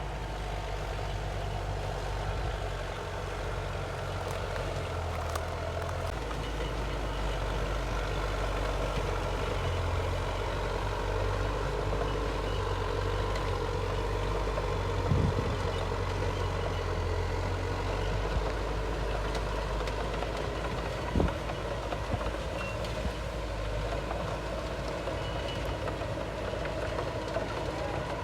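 Diesel engine of heavy earthmoving machinery running steadily under varying load, with two sharp knocks, about halfway and three quarters of the way through.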